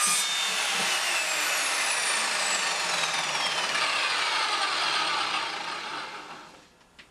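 Evolution Rage 210 SMS mitre saw's motor and blade spinning down freely after a cut. A whine falls steadily in pitch over the rush of the spinning blade and fades out about six and a half seconds in.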